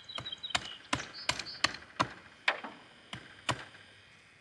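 Machete blade chopping into a three-foot white ash stake to sharpen a point on it: a run of sharp blows, about two to three a second, getting a little softer toward the end.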